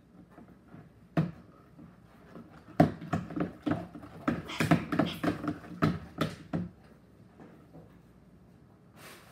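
A spoon stirring slime in a bowl, knocking and scraping against the bowl's side. There is one tap about a second in, then a quick run of clicks and taps for about four seconds.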